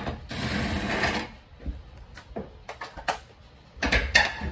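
Cordless impact wrench hammering for about a second as it spins off the fuel tank strap bolt, followed near the end by a few sharp knocks of metal parts being handled.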